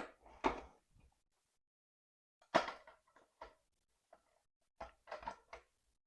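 A series of short knocks and clunks from parts being handled while the rear wheel, with its spacers and freshly greased axle, is refitted to a dirt bike. There are about five groups of knocks, the loudest about two and a half seconds in.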